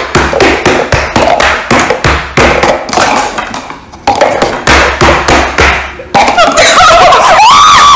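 Hands slapping a stone kitchen countertop in a quick, uneven drumroll, several sharp slaps a second. Near the end this gives way to loud, excited shrieks and laughter.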